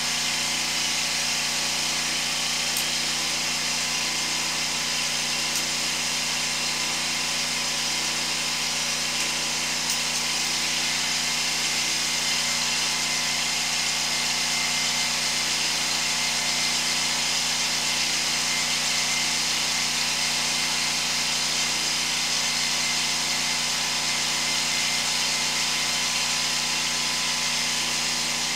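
Sewer hydro-jetter's engine and high-pressure pump running steadily while the jet clears roots from a sewer main, with a slow, regular pulse in the hum.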